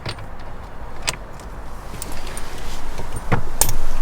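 Socket wrench on a 24 mm steering wheel retaining nut, working it loose: a few sharp metallic clicks and clatter, louder in the second half.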